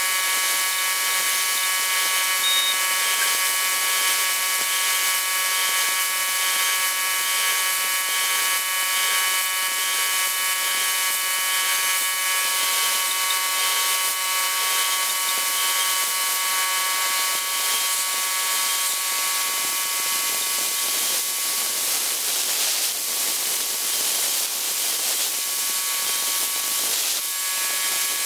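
CNC router spindle whining at high speed together with a steady, loud hiss of compressed air blasting air and oil at the cutter while the endmill mills the sheet. The whine weakens for a few seconds a little past the middle while the hiss carries on.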